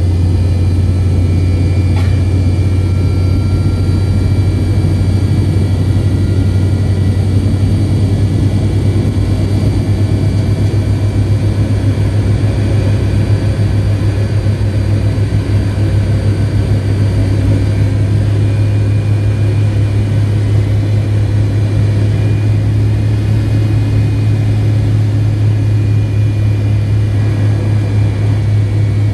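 Cabin noise at the back of a McDonnell Douglas MD-88 taxiing on its left aft-mounted engine alone: a steady low drone with a few faint high whines above it.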